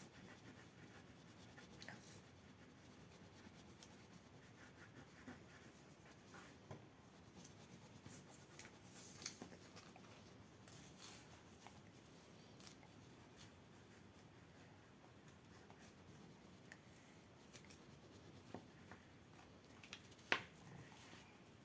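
Faint scratching of drawing or colouring strokes on paper, broken by scattered small clicks and taps, with one sharper tap about twenty seconds in.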